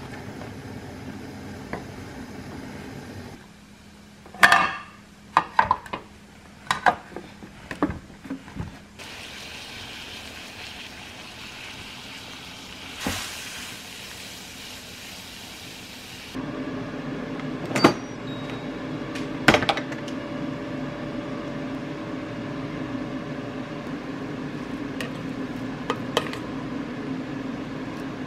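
A plastic tub of acorn jelly being peeled open and handled, with crackling and a few knocks. About nine seconds in, this gives way to water at a rolling boil around the jelly block, an even bubbling hiss that lasts several seconds. Then comes a steady hum with a few sharp clicks.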